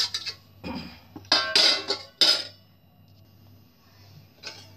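Steel and aluminium kitchenware clanking and clinking as a steel plate is set over a glass bowl as a lid and a round aluminium pan is put down on the counter. A run of clanks in the first two and a half seconds, the loudest about two seconds in, then a pause and one more knock near the end.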